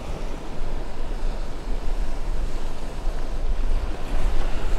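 Steady wind buffeting the microphone over choppy open water lapping around a wading angler.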